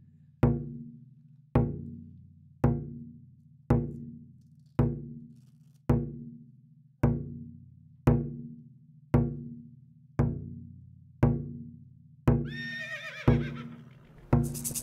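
A drum beaten in a slow, steady beat, about one stroke a second, each stroke ringing low and dying away. About twelve seconds in, a horse whinnies over the beat.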